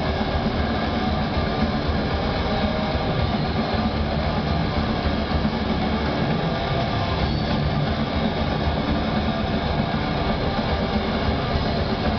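Black metal band playing live: distorted electric guitars and drums at a steady, loud, dense level, heard from within the audience.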